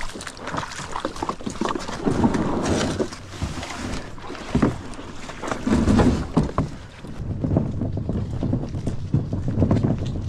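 A fishing kayak being brought ashore and hauled out at a launch: water swishing along the hull, with irregular knocks and rattles as it is handled and moved.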